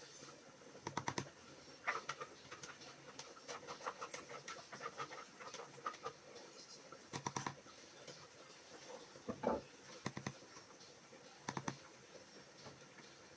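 Faint clatter of kitchen utensils during cooking: scattered taps and short runs of quick clicks, like a spoon knocking and scraping against a pot, with the loudest runs about a second in, near the middle and near the end.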